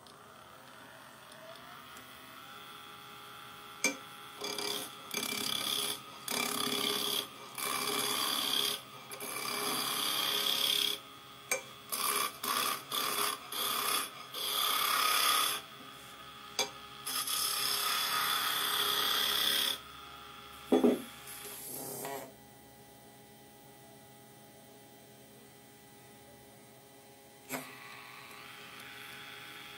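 Wood lathe running while a chisel cuts a spinning wooden cylinder, in a string of hissing shaving strokes of half a second to two seconds each. The cutting stops a little over two-thirds of the way through, with a couple of loud knocks. The lathe then runs on with a quiet steady hum.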